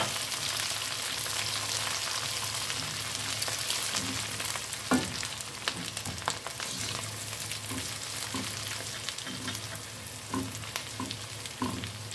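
Chopped onion, garlic and green bell pepper sizzling in hot oil in a frying pan, stirred with a silicone spatula that scrapes and taps against the pan now and then. The sizzle slowly gets a little quieter.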